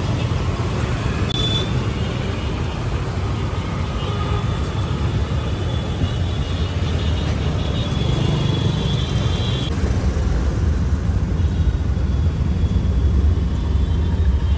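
City street traffic heard from a moving vehicle: a steady low rumble of engines and road noise.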